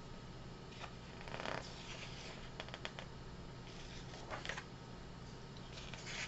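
Pages of a hardcover comic omnibus being turned and handled: a few brief paper swishes, about a second and a half in, again after four seconds and near the end, with small ticks in between.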